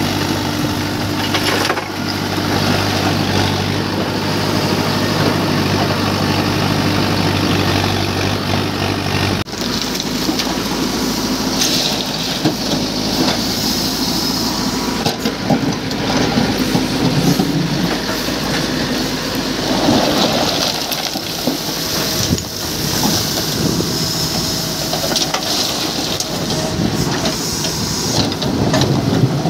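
Mahindra EarthMaster SX backhoe loader's diesel engine running. For about the first nine seconds it holds a steady, even note; after a sudden break, the sound turns uneven and rises and falls as the machine works with its bucket and backhoe in muddy water.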